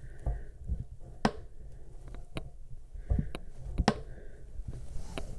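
Scattered sharp clicks and taps of a braided toilet supply line's nut being handled and threaded by hand onto the bottom of a metal bidet T-valve adapter, with soft handling rustle between them.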